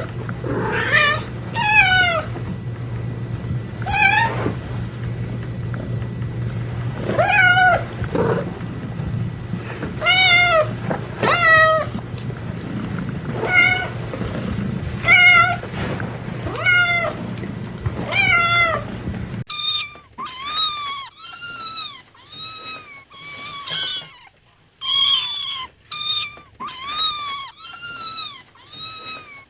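Domestic cat meowing repeatedly, a meow every one to three seconds, each falling in pitch, over a steady low hum. About two-thirds of the way through it cuts to a different, higher-pitched cat meowing in quick succession, about once a second, with no hum.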